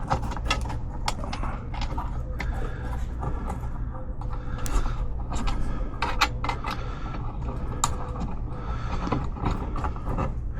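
Hand work on metal mounting hardware: irregular clicks, taps and light scrapes of bolts and brackets being handled and fitted, over a steady low rumble.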